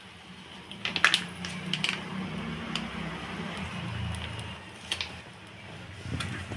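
Plastic squeeze bottle of mayonnaise squelching as it is squeezed out, with several short sharp spurts, the loudest about a second in.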